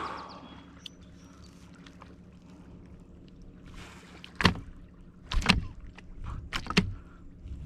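A kayak knocked by gear being handled aboard: a faint rustle at first, then from a little past halfway a run of five or six sharp knocks and clunks.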